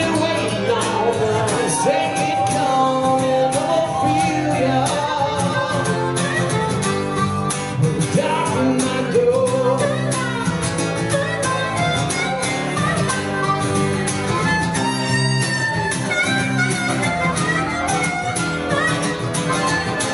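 Live acoustic guitar strumming with a harmonica playing melody lines over it.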